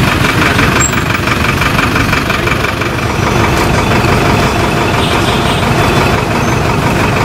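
Bus engine idling, loud and steady, with no change in pitch.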